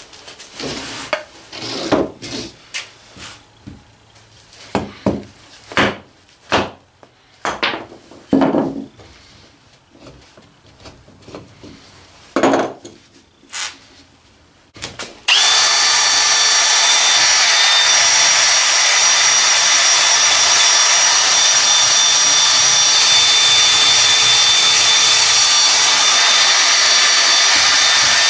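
Irregular short scrapes and knocks for about fifteen seconds, then a power tool starts abruptly and runs steadily with a high whine.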